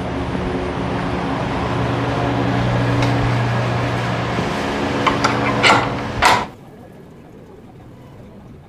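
A steady mechanical hum with a low drone, from a motor running evenly. A few sharp clicks and knocks come about five to six seconds in. Then the hum cuts off abruptly, leaving a much quieter background.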